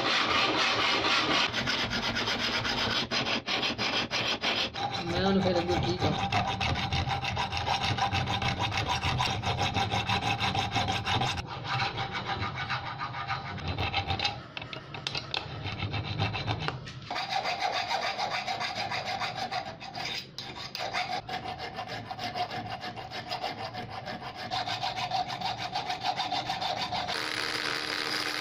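Hand files rasping back and forth on the steel handle of an antique pruning shear: first a flat file, then a round file, in repeated scraping strokes. Near the end a rotary tool with a grinding stone starts up with a steady whine.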